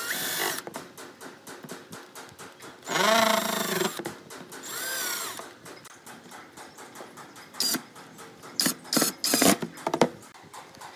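Cordless driver running screws into brass hinges on a pine frame, the trigger squeezed in short runs whose pitch rises and falls as the motor speeds up and slows, with several quick bursts near the end.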